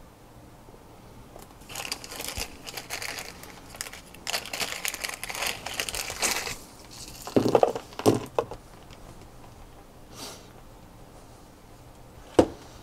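A small clear plastic parts bag crinkling as it is handled and opened, for several seconds. It is followed by two duller knocks about seven to eight seconds in and a single sharp click near the end.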